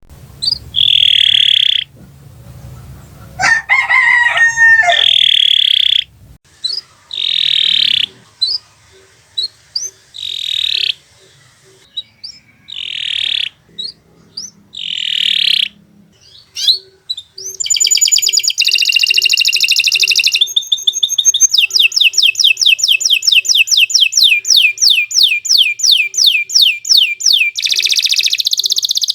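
Domestic canary singing: short separate high phrases at first, with a lower wavering call about four seconds in, then from about halfway a long unbroken run of fast, rapidly repeated trilled notes.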